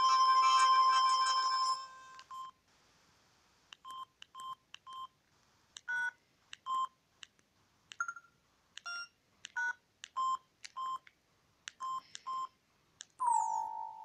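Samsung SGH-X160 mobile phone: a polyphonic ringtone melody cuts off about two seconds in, then a string of short electronic keypad beeps as the keypad sounds are previewed. A short falling electronic tone comes near the end.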